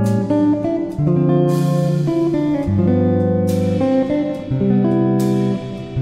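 Instrumental background music led by guitar, its chords changing about once a second, with a few sharp strikes over it.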